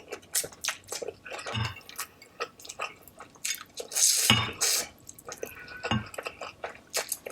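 Close-up wet eating sounds of ghost pepper noodles: slurping and chewing with many small wet smacks and clicks, and a longer, louder slurp about four seconds in.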